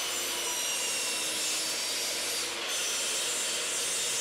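Metabo sliding miter saw running and cutting half-depth lap-joint notches into a taped stack of thin plywood strips, held at depth by the saw's depth stop. A high whine sits over a loud rasp, and the sound dips briefly about two-thirds of the way through before going on.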